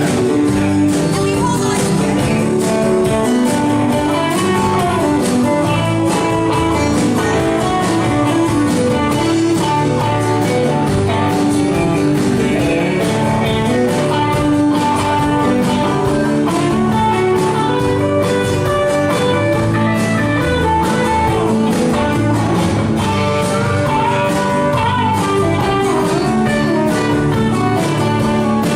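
Live band playing, with guitar to the fore over a steady drum beat.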